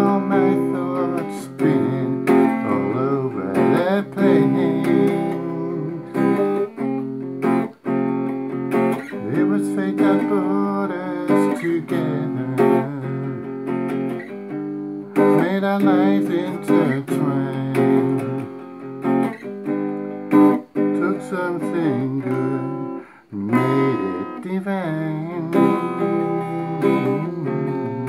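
Electric guitar played clean in a slow jazzy ballad: strummed chords and picked melody lines, with some notes bending and wavering in pitch.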